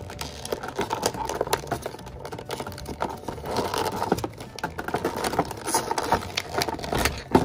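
Plastic toy packaging crinkling and clicking under hands as a figure is worked loose from its tray and zip ties, in a run of quick irregular crackles.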